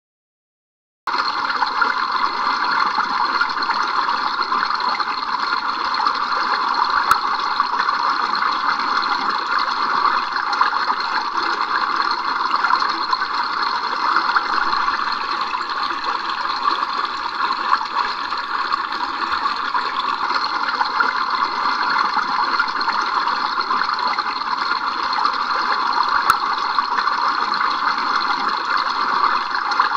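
Shallow river running over stones: a steady rushing noise that starts about a second in.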